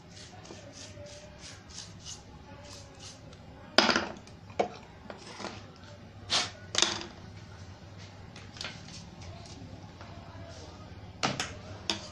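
Handling noise on a repair bench: a run of regular light ticks, about three a second, in the first few seconds, then a handful of sharper clicks and knocks, over a low steady electrical hum.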